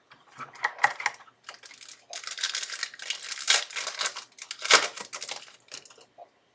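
Crinkling and rustling of a foil trading-card pack wrapper and cards being handled, with light clicks at first and a denser crinkle through the middle.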